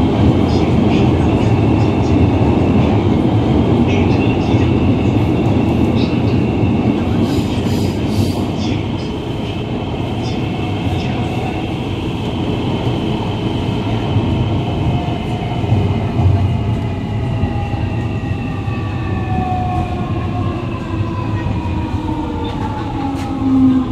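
Siemens-Adtranz Type A1 metro train's GTO-VVVF traction inverter and motors whining over the rumble of wheels on rail, heard from inside the car. The whine falls steadily in pitch as the train brakes into a station.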